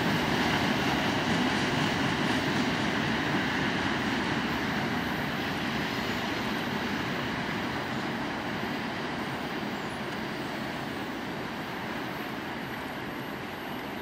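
Freight cars at the rear of a mixed freight train rolling away over the rails: steady wheel-on-rail noise that fades gradually as the train recedes.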